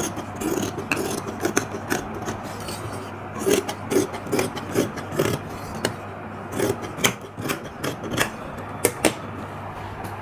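Large tailor's shears cutting through folded cloth: the blades snip again and again at an uneven pace, with the fabric rasping as it is cut.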